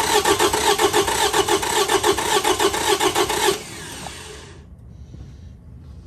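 Car engine being cranked over by the starter without starting, with one spark plug removed, so that cylinder gives no compression and the cranking rhythm is an uneven gallop. The cranking stops suddenly about three and a half seconds in.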